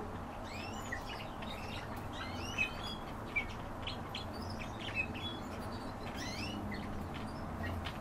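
Young barn swallow twittering: a string of short chirps and quick sliding notes, over a steady low hum.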